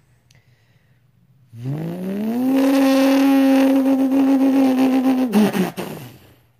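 A man's mouth-made imitation of a car engine: after a short pause it revs up in a quick rising pitch, holds a steady buzzing drone for about three seconds, then drops away and cuts off.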